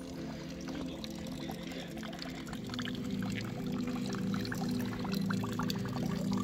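Water trickling from a small metal spout on a wooden post, splashing in many small irregular drops.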